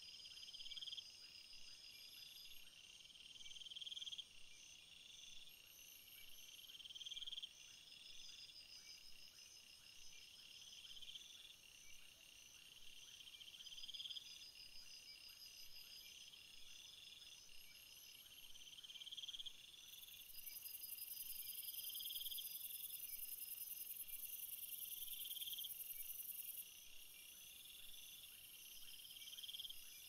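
Faint chorus of crickets and other insects: layered high-pitched chirping trills, one of which swells and fades about every three seconds. A higher, steady buzz joins in about two-thirds of the way through for several seconds and is the loudest part.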